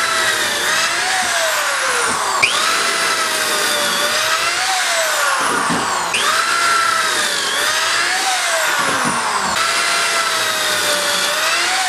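Corded drill boring pocket holes in 2x4s through a Kreg pocket-hole jig. Its steady motor whine sags as the stepped bit bites and recovers again, over and over, about every three and a half seconds.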